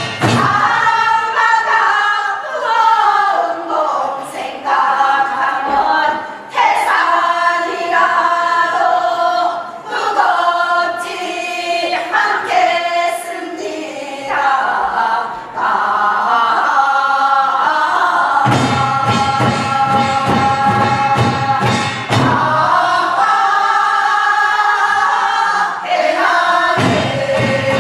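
A group of voices singing Gyeonggi hwimori japga, the fast-paced Korean folk song genre, together.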